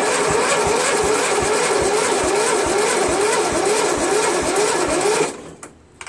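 Briggs & Stratton lawn tractor engine turned over by its electric starter without firing. The starter whine rises and falls with each compression stroke, about two and a half times a second. The cranking is slow, and it stops suddenly about five seconds in.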